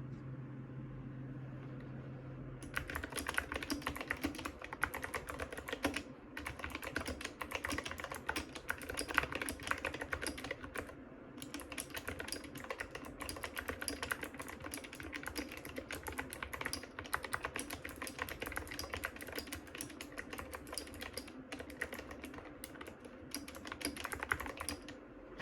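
Epomaker SK61S mechanical keyboard with spray-lubed Gateron Optical Blue clicky switches being typed on fast and continuously, starting about three seconds in, with a few short pauses. A steady low hum comes before the typing starts.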